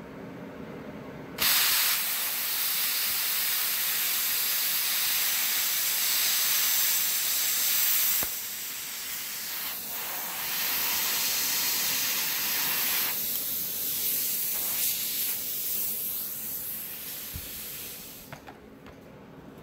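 Plasma cutter with Wish-brand consumables cutting 14-gauge steel plate: the arc starts suddenly about a second and a half in with a loud, steady hiss of air and arc. The sound steps down about eight seconds in as the cut ends, and the air keeps hissing more quietly before fading out near the end.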